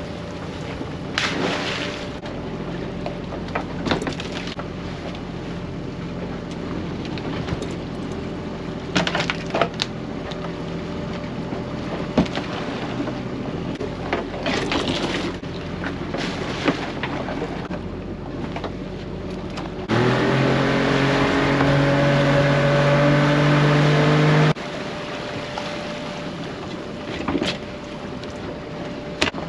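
Small boat's engine running steadily at low revs, with scattered knocks and clatters from crab pots being handled. About twenty seconds in, the engine is throttled up with a short rising pitch, runs louder and steady for about four seconds, then drops back abruptly.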